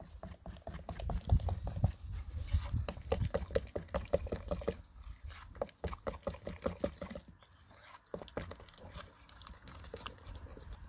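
Wooden spoon stirring thick, wet amlou paste in a glass bowl: quick runs of sticky, sloshing strokes, several a second, over a low rumble.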